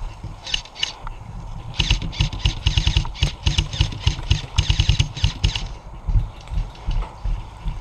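Airsoft electric rifle firing: two single shots about half a second in, then rapid full-auto bursts of clicking shots from about two seconds in until about five and a half seconds.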